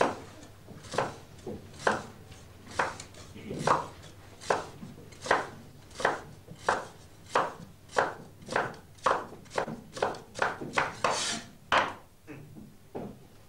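Two people chopping with knives on wooden chopping boards: sharp single strokes a little over one a second, quickening to about two or three a second around eight seconds in, then stopping about twelve seconds in, followed by two lighter knocks.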